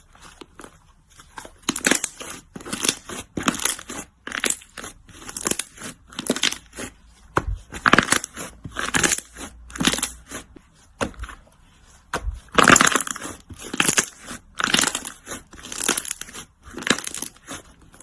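Slime being squeezed and pressed by hand, one squish about every half second, starting about a second and a half in, with a short pause about two-thirds of the way through.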